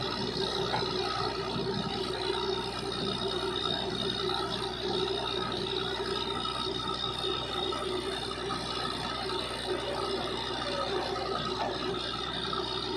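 Truck-mounted borewell drilling rig running while drilling: a steady mechanical drone with a constant high whine.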